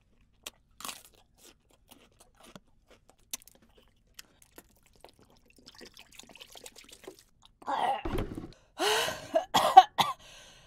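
A few faint clicks, then from about eight seconds in a woman coughs and splutters in four harsh bursts, her mouth burning from an extremely hot chili chip.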